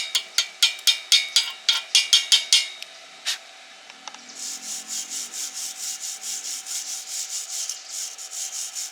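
Sharp, evenly spaced metallic taps, about three a second, stop about a third of the way in. After a pause, a steel wire brush scrubs back and forth over a stick weld in rhythmic strokes, about four a second, cleaning off slag.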